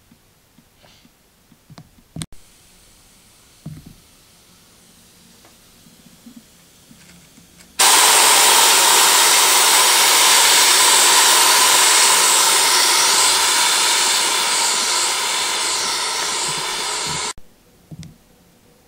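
Venturi compressed-air cleaning gun running in vacuum mode, sucking up grit: a loud, steady rush of hissing air that starts abruptly about eight seconds in and cuts off suddenly some nine seconds later.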